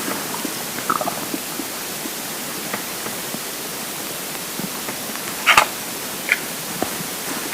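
Steady hiss with a few faint, brief gurgles from a hungry, empty stomach between rumbles; the loudest gurgle comes about five and a half seconds in.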